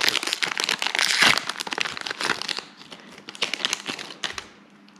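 Foil wrapper of a Pokémon card booster pack crinkling as it is handled and the cards are pulled out. Dense crackling thins to a few scattered crinkles about three seconds in.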